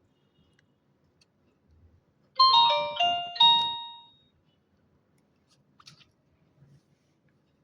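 Short Nokia mobile phone tone: a quick run of electronic notes in three bursts, lasting under two seconds. A few faint clicks follow a couple of seconds later.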